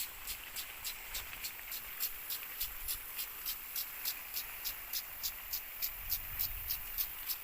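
Insect calling in a steady rhythm, about three to four high-pitched pulses a second, over a faint steady hiss.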